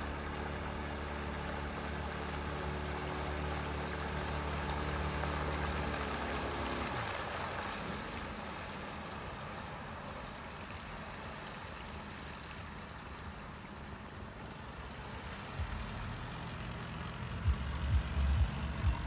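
Small boat motor on a catamaran running at a steady pitch, then cutting off abruptly about seven seconds in; afterwards only a soft hiss of water as the boat glides in.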